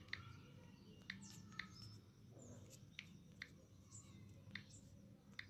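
Faint, sharp taps of typing on a smartphone's on-screen keyboard, about eight irregularly spaced clicks over near-silent room tone.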